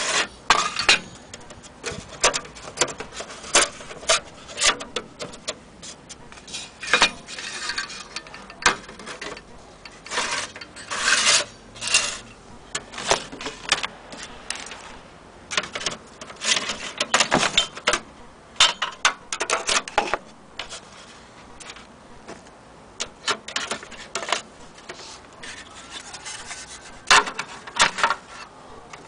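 Irregular clicks, knocks and short scrapes of metal parts being handled and slid: the brass lamp holder and sheet-metal lamphouse of an old magic lantern projector.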